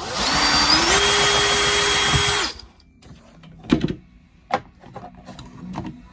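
Cordless drill-driver running for about two and a half seconds, its motor pitch rising as it spins up and then holding steady before it stops. A few light clicks and knocks follow.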